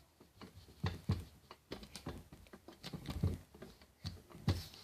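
Butter slime being stretched and squished by hand, giving a string of small, irregular sticky clicks and soft pops.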